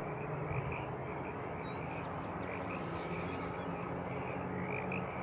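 Steady hiss with a faint low hum from an air traffic control radio feed, open between transmissions.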